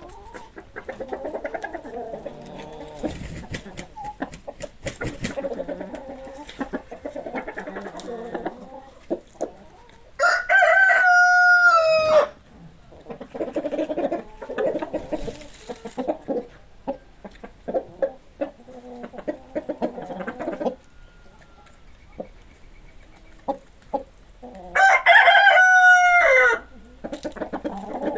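Chickens clucking, with a rooster crowing twice, each crow about two seconds long and the loudest sound here: once about ten seconds in and again near the end.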